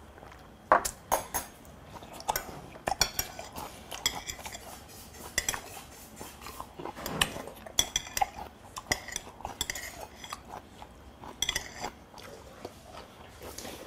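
Metal chopsticks clicking and scraping against plates and bowls, an irregular run of sharp clinks that ring briefly.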